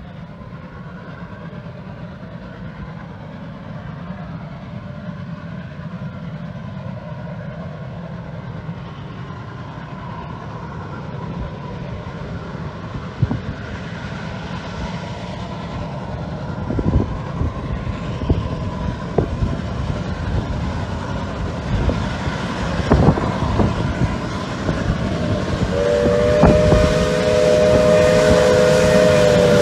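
Steam locomotive approaching under power, its running sound growing steadily louder as it draws near. About three seconds before the end, its chime whistle blows a loud, steady chord.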